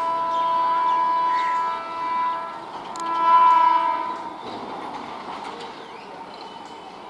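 Electric locomotive's horn: a long blast that stops about two seconds in, a short toot, then a louder blast about three seconds in. After that comes the steady rolling noise of the approaching train on the rails.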